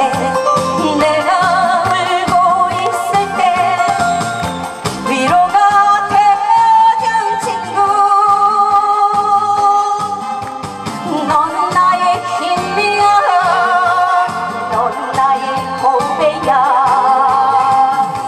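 A woman singing a song into a handheld microphone over amplified accompaniment with a steady beat, her voice wavering with vibrato and holding long notes in the middle.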